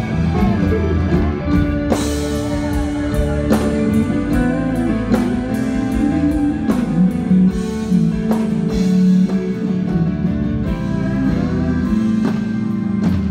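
Live country band playing an instrumental passage: acoustic guitar and fiddle over a drum kit, with sliding fiddle notes and drum hits.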